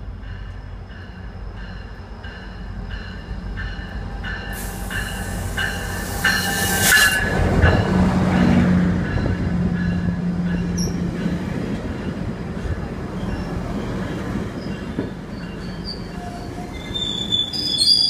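GO Transit bilevel commuter train rolling into a station platform and braking. A loud hiss of air comes a few seconds in, and high wavering brake squeal starts near the end.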